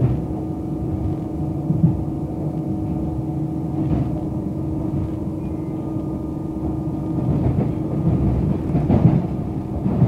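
Electric suburban train running along the track, heard from inside the carriage: a steady rumble of the wheels on the rails with a constant hum over it, and a couple of short clicks from the track.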